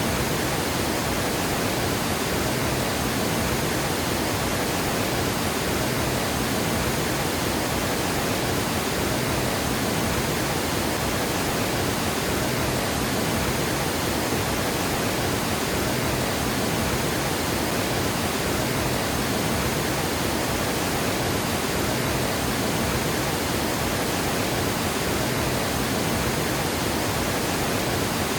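Water pouring over a dam spillway: a loud, steady rush of falling water.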